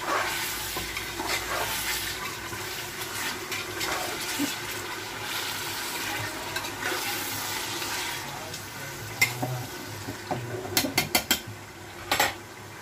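Beef pieces frying with onion in an aluminium pressure cooker, sizzling as a metal spoon stirs and scrapes them around the pot. Near the end, a quick run of sharp metal clinks.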